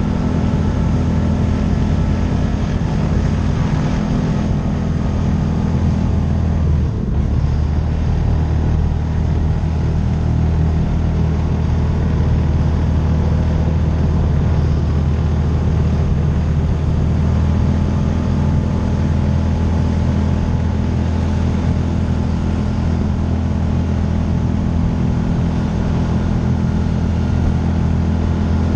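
Side-by-side UTV's engine running steadily as it drives up a paved road, a continuous low drone that dips briefly about seven seconds in.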